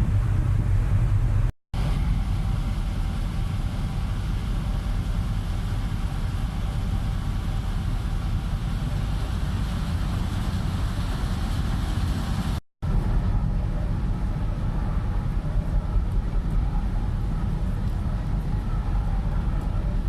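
Steady low rumble of the MV Clansman ferry's engines heard aboard while under way, with a faint hiss of wind and water over it. The sound cuts out abruptly for an instant twice.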